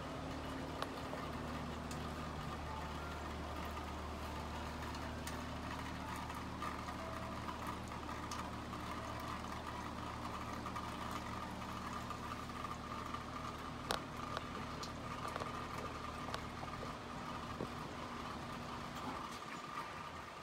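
Metal-tube wind chimes clinking faintly now and then in a light breeze, over a steady low mechanical hum.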